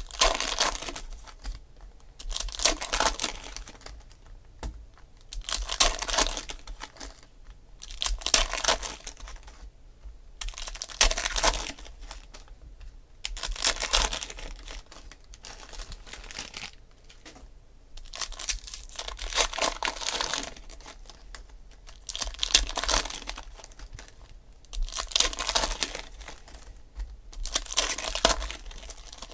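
Foil trading-card packs of 2016 Panini Select Football being torn open and crinkled by hand, a burst of crinkling and tearing every two to three seconds.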